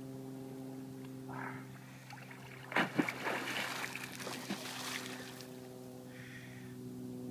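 Water splashing and churning as a man dives under the surface of a pond, starting sharply a little before the middle and lasting about two and a half seconds, over a steady low hum.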